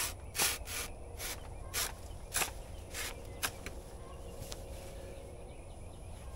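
A hand saw cutting through a banana bunch's thick, fibrous stalk: about eight short strokes, roughly two a second, over the first three and a half seconds, with one fainter stroke a second later.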